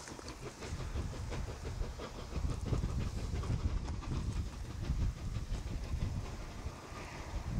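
Double-headed QJ 2-10-2 steam locomotives working hard uphill, their exhausts giving a rapid, continuous chuffing that grows louder a couple of seconds in.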